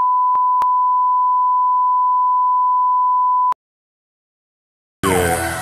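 A steady, pure, single-pitch test-tone beep with two faint clicks in it, cutting off suddenly about three and a half seconds in. After a second and a half of silence, music starts near the end.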